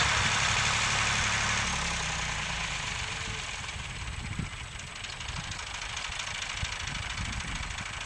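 Massey Ferguson tractor engine running; about two seconds in its revs drop and it settles to a lumpy idle.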